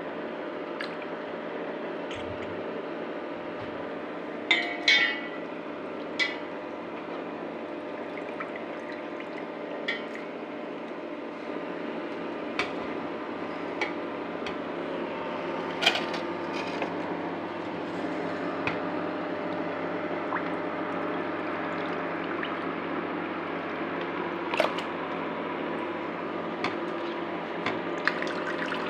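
Wet raw meat-and-bone pieces being scooped by hand from a steel bowl and dropped into a pot, with soft squelching. A few sharp metal clinks from the bowl come through, a ringing cluster of them about four and a half seconds in, over a steady background hum.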